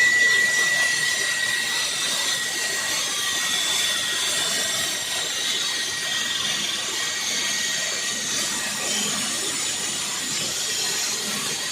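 Floor saw running and cutting into a concrete floor, a steady loud grinding noise. A high whine is strongest at the start and fades over the first two seconds.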